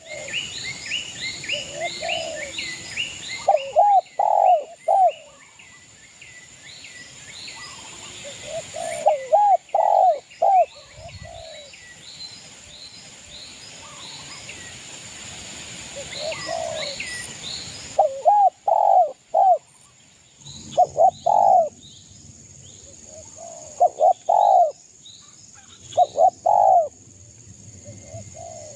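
Spotted dove (derkuku) cooing in short repeated phrases every few seconds, with a small bird chirping quickly and repeatedly behind it for the first half.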